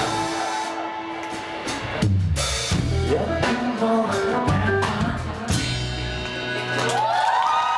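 Live rock band playing the close of a song: heavy drum kit hits and bass-drum strokes with low bass notes, then sustained tones coming in near the end.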